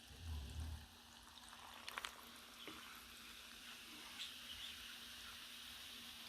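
Faint fizzing of sparkling water poured over fruit, with a low thump in the first second and a couple of sharp clicks about two seconds in.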